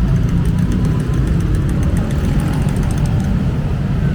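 Steady low rumble of city street traffic, with a run of light clicks from about half a second to three seconds in.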